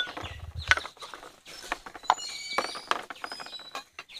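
Small terracotta bowls knocked and clacked against each other and the woven bamboo tray as a child handles them: a run of irregular light knocks.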